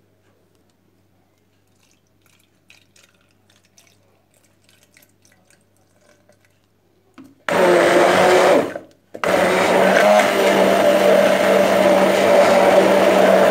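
Immersion (stick) blender running in a plastic beaker of banana, flour and milk batter, with a steady motor hum. It starts about halfway through, stops briefly about a second later, then starts again and runs on. Before it start there are only faint, scattered ticks while milk is poured in.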